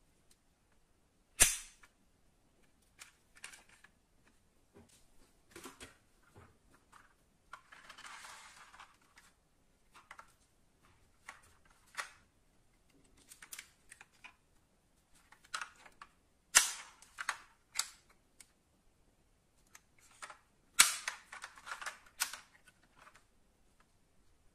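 Small die-cast metal model SUVs being handled: their hinged doors clicked open and snapped shut. Scattered light clicks, with three sharp loud snaps and a short scraping rustle.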